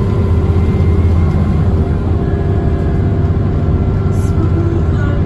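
Cummins ISCe diesel engine and drivetrain of a TransBus Trident double-decker bus running under way, heard from inside the passenger saloon: a steady deep drone with several fainter higher tones above it, and a light click about four seconds in.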